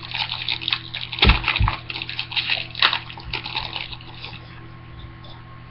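A foil trading-card pack being torn open and its cards handled: irregular crinkling and rustling, with a couple of dull knocks about a second and a half in.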